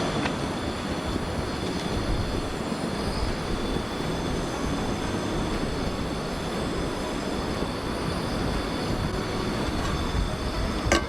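Steady, even rushing noise with no rhythm, and a single sharp click near the end.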